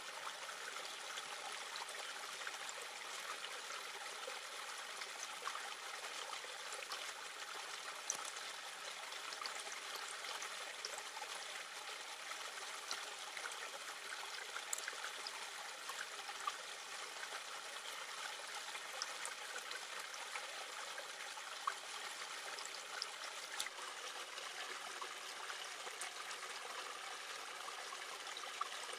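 A shallow stream flowing and trickling steadily over rocks, with a few faint clicks from a knife slicing an onion on a leaf.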